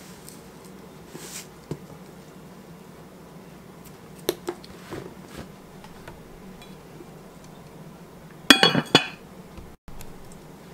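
Kitchen handling sounds: a few light taps and clinks of spice jars and a covered baking dish on a wooden counter, with a short louder clatter of clinks about eight and a half seconds in.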